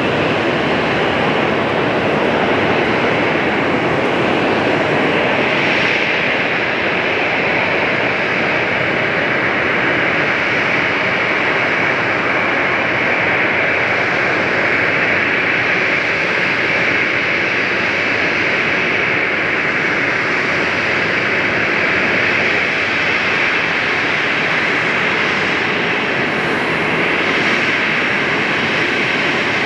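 Boeing 737-800's CFM56-7B turbofan engines running at taxi power: a steady jet whine over a broad rush as the airliner taxis.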